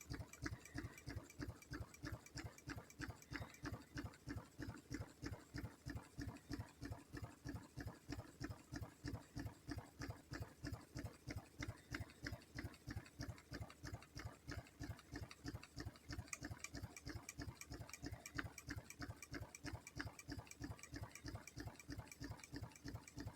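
Horse hooves clattering in a fast, even rhythm of about four beats a second, steady throughout.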